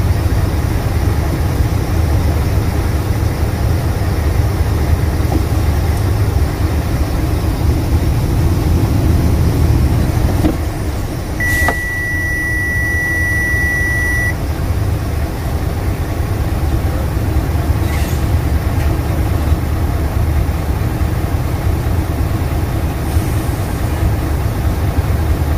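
Engine and road noise inside a slowly moving truck's cab, a steady low rumble. About halfway through, a high steady beep sounds for about three seconds.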